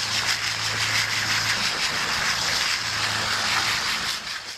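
Steady hiss of a water jet spraying dirt out of the pleats of a pool cartridge filter, over a low steady hum. It cuts off suddenly at the end.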